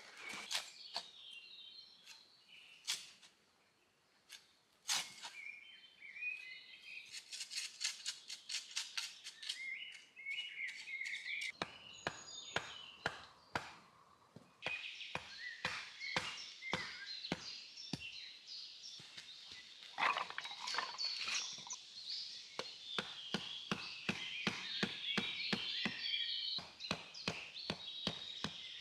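Birds singing and chirping in woodland, over a series of sharp knocks: a few scattered at first, a quick run of them about seven seconds in, then a steady two or three a second from about twelve seconds on.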